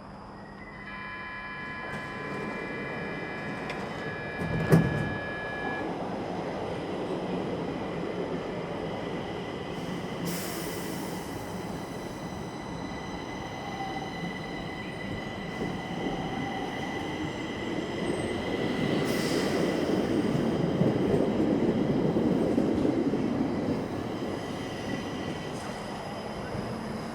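Subway train heard from outside the car: a high steady whine of several tones for the first few seconds, a single sharp clank about five seconds in, then the running rumble of the train with a thin steady squeal, growing to its loudest around twenty seconds in before easing off.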